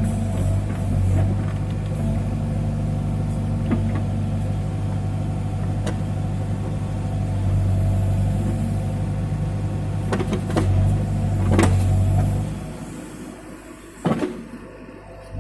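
Case 580 backhoe loader's diesel engine running steadily under work, with a few sharp knocks. The engine sound falls away about twelve and a half seconds in.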